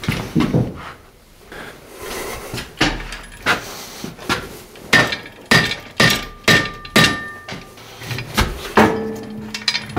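Repeated metal clanks and knocks from hoist chains and a hanging Isuzu 4BD1T diesel engine being guided down onto a steel run stand. There are about a dozen sharp hits, several of them ringing on briefly, and a lower ring comes near the end.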